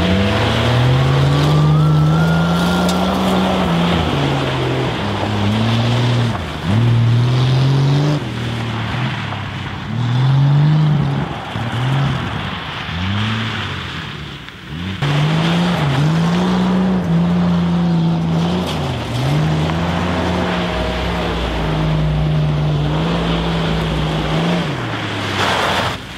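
1970 Dodge Challenger engine revved hard and let fall again and again, with its tyres spinning on gravel. The revs dip briefly a little before halfway, then are held fairly steady for several seconds before dropping near the end.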